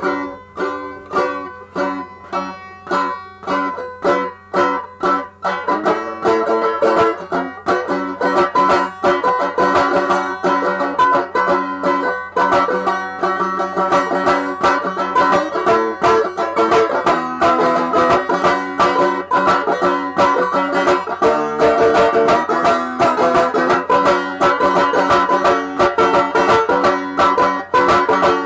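Solo banjo playing an old-timey blues tune, picked without singing. Sparse, separate plucked notes at first, then fuller and busier picking from about six seconds in.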